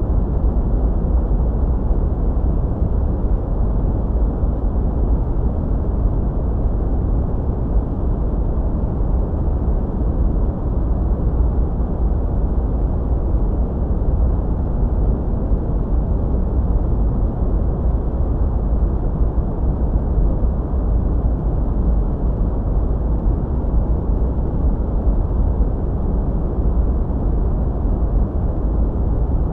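Steady, deep white-noise sleep sound: an even, low-pitched hiss with its weight in the bass and a muffled top, not changing at all.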